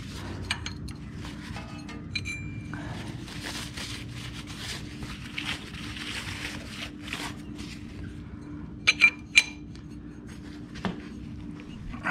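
Hand work on bare engine metal: a rag wiping the crankshaft flange, small metal clinks and taps, and a few sharp metal clinks about three-quarters of the way in as a part is seated on the flange. A steady low hum runs underneath.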